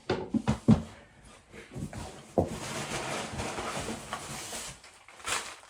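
Wooden boards knocking and clicking against each other as they are handled, then a few seconds of paper packaging rustling, with one more sharp knock near the end.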